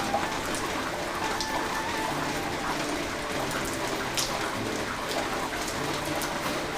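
Rain falling steadily: an even hiss scattered with the small ticks of individual drops.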